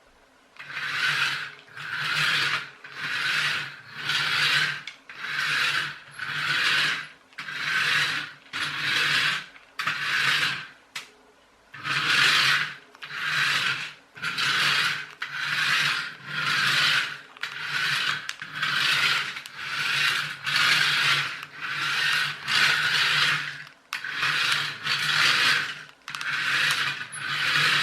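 Small electric motor and plastic gears of a Tandy Radio Shack wired remote-control toy car whirring in short bursts about once a second as the car is driven by its hand controller, with a brief pause about eleven seconds in. The car is running again after its metal springs were bent to give them more spring.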